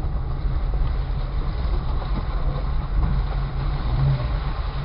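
Jeep Cherokee XJ running at low speed over an off-road trail, heard from inside the cabin: a steady low engine and drivetrain rumble.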